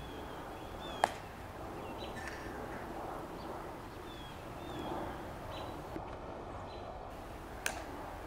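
Two sharp heel clicks from a tomb guard's metal-tapped dress shoes, about a second in and near the end, the first much the louder. Birds chirp now and then over a quiet open-air hush.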